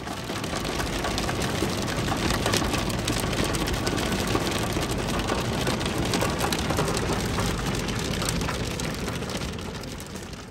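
Hail and heavy rain pelting a car's roof and windows, heard from inside the car: a dense, continuous patter of many small hits. It swells in at the start and fades out near the end.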